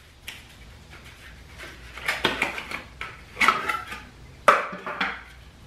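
Thin abrasive cutting wheels being slid out of a cardboard sleeve and handled: cardboard rustling and scraping with a few sharp clacks of the discs, the sharpest about four and a half seconds in.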